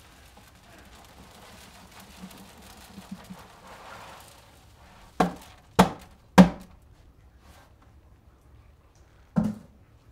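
Grape pomace sliding and rustling out of a tipped container into a copper pot, then four heavy thuds, three in quick succession about half a second apart and a fourth a few seconds later, as the emptied container is knocked to free the last of the pomace.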